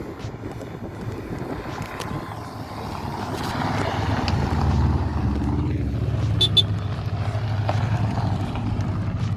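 Car engine drawing closer, its note growing louder over the first five seconds and then holding steady, with a brief high double chirp about six and a half seconds in.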